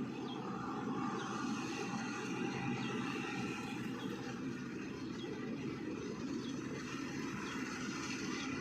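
Combine harvester running steadily while cutting wheat: a continuous, even mechanical roar with no let-up.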